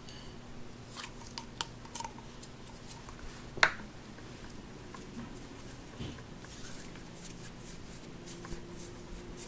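Hands handling Play-Doh: pulling it out of its plastic tub, then rolling it between the palms. Soft rubbing with scattered light clicks, and one short, sharp sound about three and a half seconds in, the loudest of the lot.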